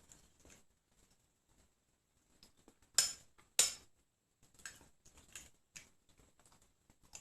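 Spoon and bowl handling while eating rice pudding: a few light, sharp clicks and taps, the two clearest about three seconds in, half a second apart, with fainter ticks around them.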